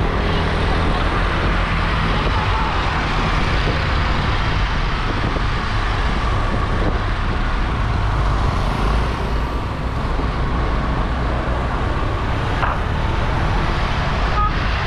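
A motor scooter riding through town traffic: steady engine and road noise mixed with a heavy wind rumble on the microphone.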